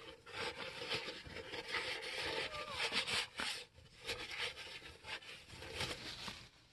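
Paper towel rubbing over a polished crankshaft rod journal, in irregular wiping strokes with short pauses, cleaning off leftover polish and brake cleaner.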